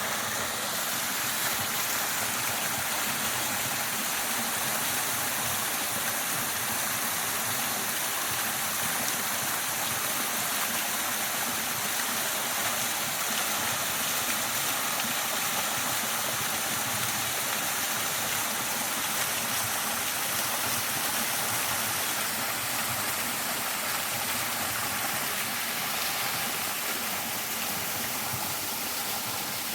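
Waterfall: water falling and rushing in a steady, even roar of white noise.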